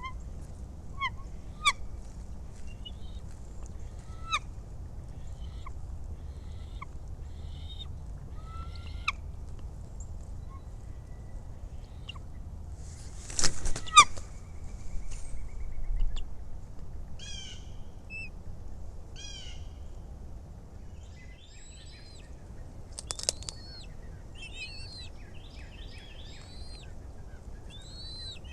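Bald eagles calling at the nest: scattered short, high chirps, with a brief loud burst of noise about halfway through. Near the end, small songbirds sing repeated, sweeping phrases.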